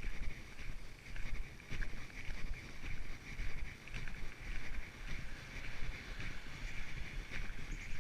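Footsteps of someone walking along an outdoor trail at an even pace, about one step every second, with wind rumbling on the microphone and a steady high hiss in the background.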